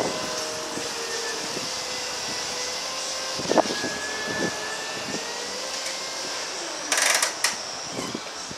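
Linde E35P electric forklift truck driving, its electric drive giving a steady whine that glides down in pitch near the end. A short burst of noise comes about seven seconds in.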